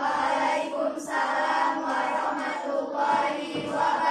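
A group of students' voices singing together in unison.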